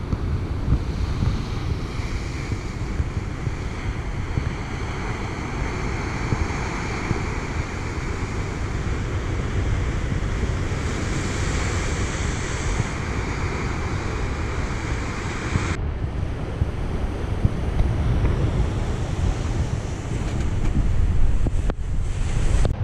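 Ocean surf breaking and washing over a rocky shoreline, a steady rushing hiss, with strong wind buffeting the microphone.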